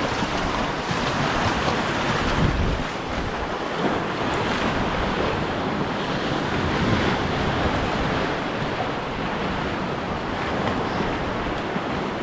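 Sea waves washing against rocks, with wind buffeting the microphone.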